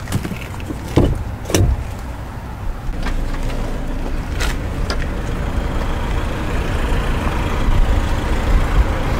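Lada Niva's 1.7-litre four-cylinder petrol engine idling steadily. Two sharp clacks about a second in as the hood release lever under the dash is pulled, then a few lighter knocks.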